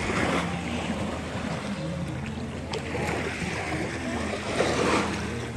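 A boat's motor running with a steady low hum while water washes past, and voices talking in the background.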